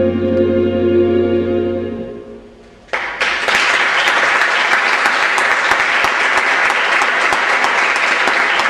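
Music with held, sustained chords fades out about two seconds in. About a second later an audience starts applauding and keeps clapping steadily.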